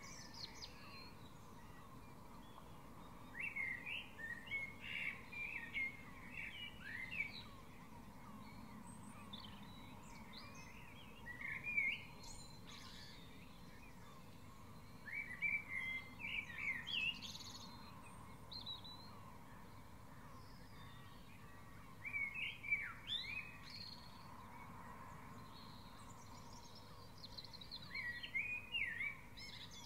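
Dawn chorus birdsong: a songbird sings quick, varied whistled phrases in bursts of a few seconds, about five times, with quieter chirps and faint hiss in between.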